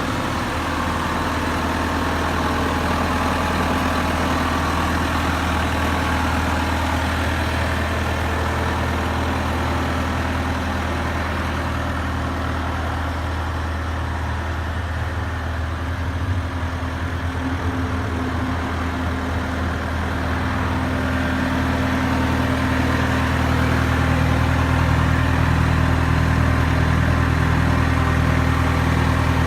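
The diesel engine of a 2014 Bobcat S650 skid steer running steadily at idle, growing somewhat louder about two-thirds of the way through.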